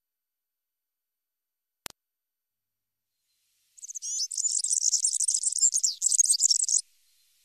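European serin singing one fast, high-pitched phrase of tightly packed notes, lasting about three seconds and starting about halfway through, after a single faint click.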